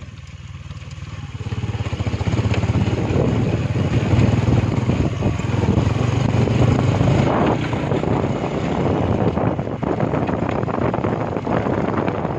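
Engine of the vehicle carrying the camera, running as it travels along a rough road, with wind buffeting the microphone. It gets louder about two seconds in and then stays loud.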